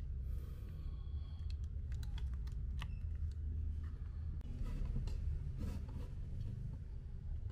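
Small clicks and taps as a kiridashi-style knife with a wooden handle is turned in the hands, then from about four and a half seconds in, its blade scraping and shaving a strip of hardwood, over a steady low rumble.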